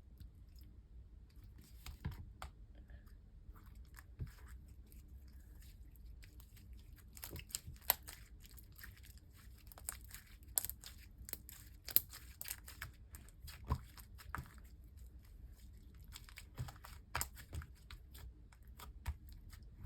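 Soft, sticky slime being squished and pulled by hand, giving irregular small sticky pops and crackles; the slime is still very sticky and short of activator.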